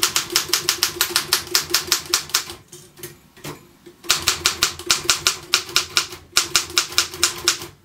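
Royal KMM manual typewriter being typed on quickly, its typebars striking the platen in rapid, even clacks of about seven or eight a second. There are two runs of typing with a pause of about a second and a half between them.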